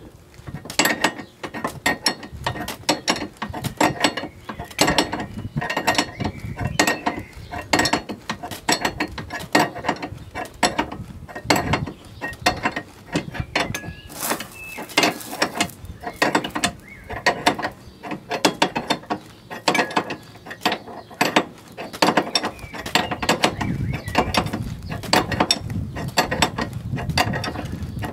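Ratcheting combination wrench turning a nut on a car's front lower control arm, its pawl clicking in quick short runs with each back-swing of the handle.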